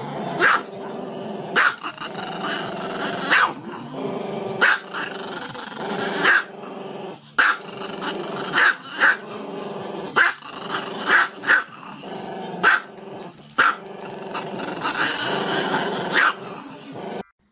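Small dog with its muzzle raised, making long drawn-out growling calls broken by more than a dozen sharp, short barks. It stops suddenly near the end.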